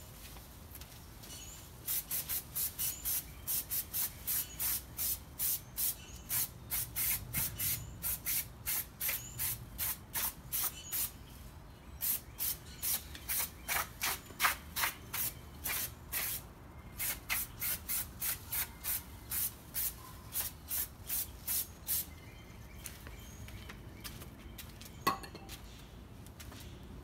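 Aerosol spray paint can spraying in short, rapid bursts, about three a second, with a couple of brief pauses, stopping a few seconds before the end. A single sharp knock near the end.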